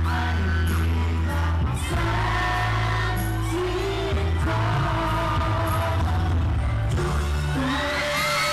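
A male singer singing a Thai pop song live into a handheld microphone over amplified backing music with a steady bass, recorded on a phone.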